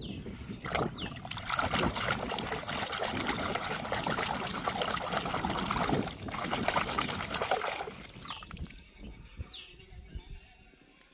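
Water pouring and splashing for about seven seconds, then dying away.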